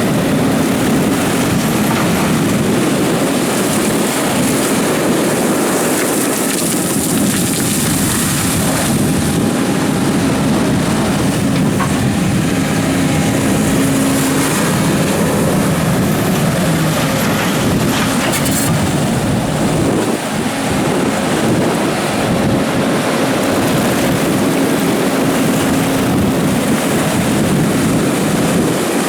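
Develon DX300 excavator working in gravel: its diesel engine runs steadily under load, with a pitched hum that swells and fades as the hydraulics work, and one short sharp click about two-thirds of the way through.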